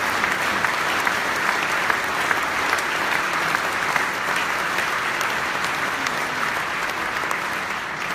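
Audience applauding steadily: dense, continuous clapping.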